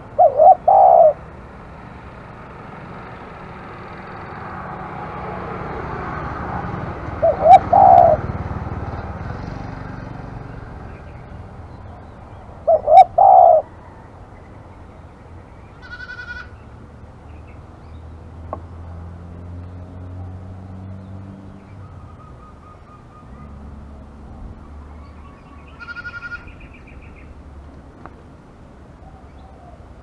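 Spotted dove cooing: three short phrases of a few quick, low coos each, about a second in, around eight seconds and around thirteen seconds. A small bird chirps briefly twice later, and a low rumble swells and fades between the first two phrases.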